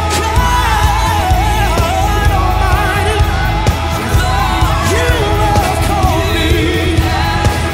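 Pop-rock song with a singer over drums and heavy bass.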